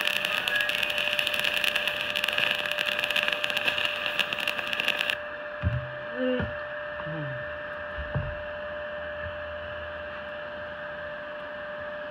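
Stick welding arc crackling steadily as a bead is laid on a notched pipe T-joint, cutting off suddenly about five seconds in when the arc is broken. A steady hum carries on after the arc stops.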